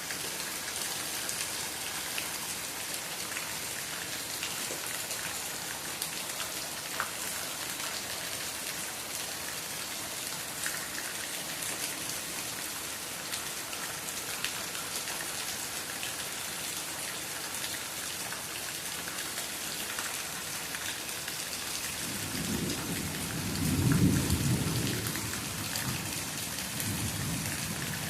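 Steady rain falling, with scattered sharper drop ticks. About 22 seconds in, a low rumble of thunder swells, peaks and fades over a few seconds.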